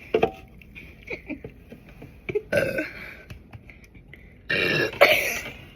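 A girl burping after drinking soda: a short burp about two and a half seconds in, then a longer, louder burp near the end.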